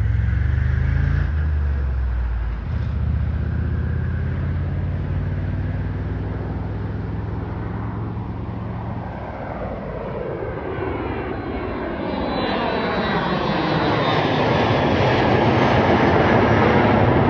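Embraer ERJ-145XR regional jet's two Rolls-Royce AE 3007 turbofans climbing out after takeoff. A low steady drone grows into a louder, sweeping rush in the last few seconds as the jet passes nearly overhead.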